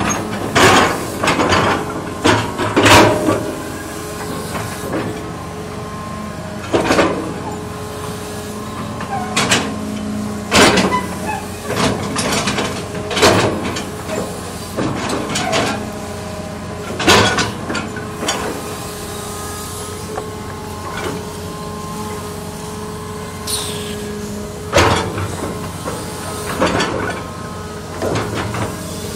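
Hitachi Zaxis 200-1 hydraulic excavator digging soil: the diesel engine runs steadily under load, with a dozen or so loud, irregularly spaced scrapes and clunks as the bucket cuts into and dumps earth.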